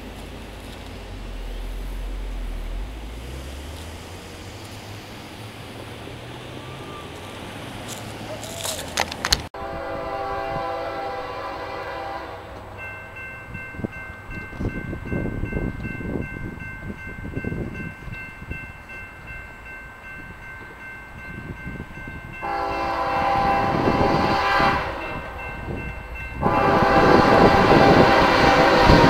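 A train rumbling through a grade crossing, then a second crossing's electronic warning bell ringing steadily as its lights flash and gate lowers, while an approaching locomotive sounds its horn in two long, loud blasts near the end.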